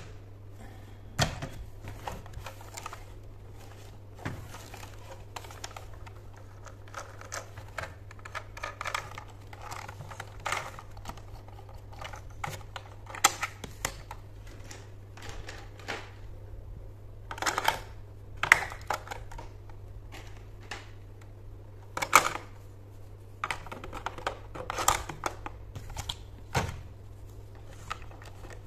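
Hard plastic clicks, taps and knocks as a battery-operated plastic toy train is picked up, turned over and handled on a tabletop, at an irregular pace with a few louder knocks. A steady low hum runs underneath.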